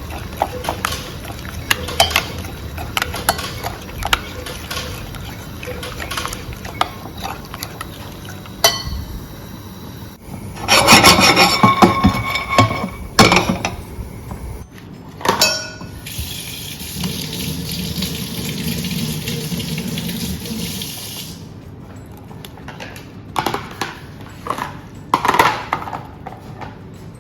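Kitchen tap water running into a sink while things are washed and handled, with frequent knocks and clinks of dishes. There is a louder, busier stretch about a third of the way through and a steadier run of flowing water past the middle.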